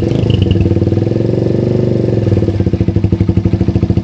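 Suzuki Thunder 125's single-cylinder four-stroke engine running through a Yoshimura R11 aftermarket muffler, a loud, big exhaust note of steady rapid pulses, with a slight rise in revs near the middle.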